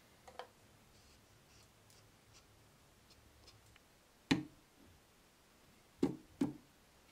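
Wooden parts knocking together as a wooden lid is handled on a phenolic-plywood box: a faint click near the start, one sharp knock about four seconds in as the lid comes down, and two more knocks half a second apart about six seconds in as it is pressed into place.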